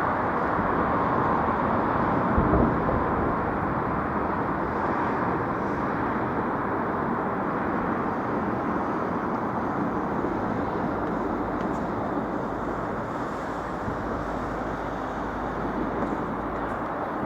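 Steady outdoor city noise, like road traffic, with a single short thump about two and a half seconds in.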